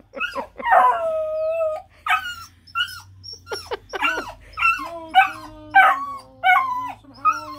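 Bluetick Coonhound puppy howling: a run of short yelping calls broken by longer drawn-out howls, one held about a second in and a lower one through the second half.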